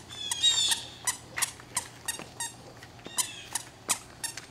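Toddler's squeaker shoes chirping with each step as she walks, short high squeaks about three a second, with a brief break midway.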